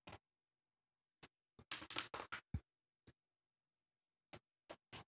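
Faint handling of a glossy paper booklet: a short rustle of a page being turned about two seconds in, with scattered soft ticks and taps around it.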